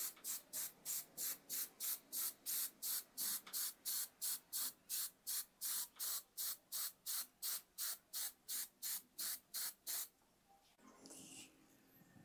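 Aerosol spray-paint can sprayed in short bursts, about three hissing puffs a second, which stop about ten seconds in.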